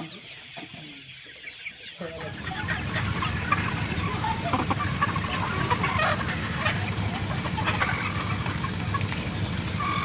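A flock of Sonali chickens clucking and calling over one another. About two seconds in, the sound jumps louder and a steady low rumble runs beneath the calls.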